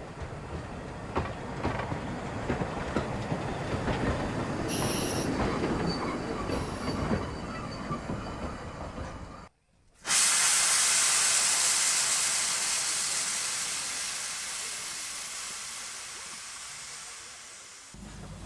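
Narrow-gauge steam locomotive on the move, with rattling and clanking and two brief high wheel squeals. After a break it gives a loud, steady hiss of escaping steam that slowly fades away.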